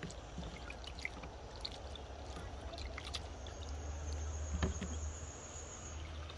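Outdoor ambience: insects droning in a steady high pitch that fades out and comes back about two seconds in. Under it is a low rumble of wind on the microphone, with a few light clicks of hands working in a plastic bowl.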